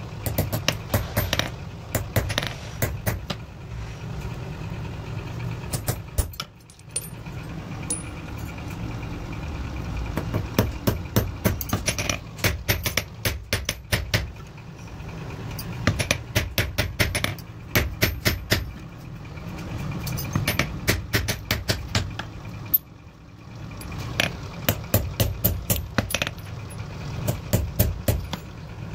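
Hand hammer striking small steel pliers on a steel anvil block in quick runs of sharp metallic blows, several a second, broken by short pauses, over a steady low hum.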